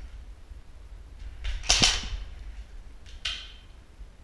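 Airsoft gun shots: a few short, sharp cracks, the loudest a little under two seconds in and a weaker one a little after three seconds.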